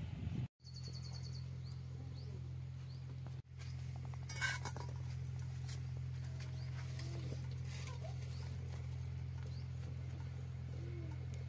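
Scattered faint bird chirps over a steady low hum, with a quick run of high ticks about a second in and a brief cluster of clicks about four and a half seconds in.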